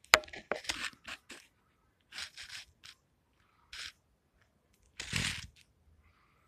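Short, irregular scraping noises, a cluster at the start and a few more spread out, the longest and loudest about five seconds in.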